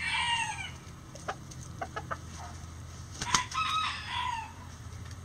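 Roosters crowing: the tail of one crow fades in the first moment, then a few short clucks, and a sharp tap about three seconds in is followed by a second crow that drops in pitch at its end.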